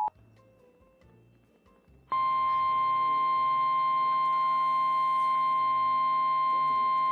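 Emergency Alert System warning audio: the two-tone EAS attention signal cuts off right at the start, and after about two seconds of near silence the 1050 Hz NOAA Weather Radio warning alarm tone comes in, one loud steady high tone that holds on, announcing a relayed severe thunderstorm warning.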